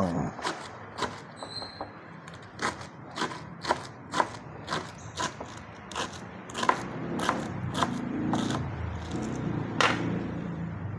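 Kitchen knife chopping spring onions on a plastic cutting board: sharp knocks of the blade hitting the board, about two a second, stopping shortly before the end.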